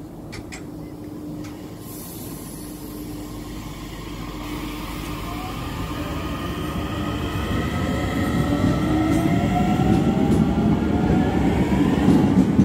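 Irish Rail DART electric train pulling away from the platform: the whine of its traction motors rises in pitch in several tones together, getting steadily louder as it picks up speed.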